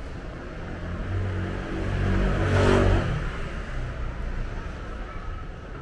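A motor vehicle drives past close by: its engine grows louder, peaks about two and a half seconds in, then fades away.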